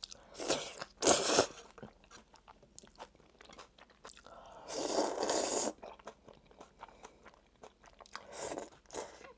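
A person slurping and chewing noodles close to the microphone. There are two loud slurps in the first second and a half, a longer one about five seconds in, and shorter ones near the end, with small wet chewing sounds in between.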